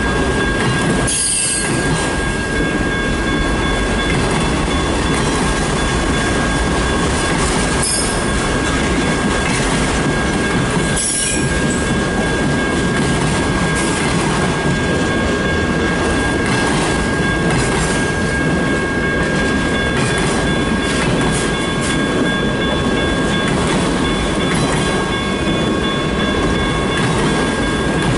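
Freight train cars, autoracks and boxcars, rolling past a grade crossing at close range: a steady rumble of wheels on rail with a steady high-pitched wheel squeal running through it.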